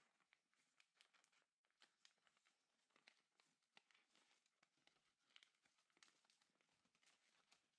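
Faint crinkling and rustling of origami paper being folded and creased by hand, a scatter of small crackles.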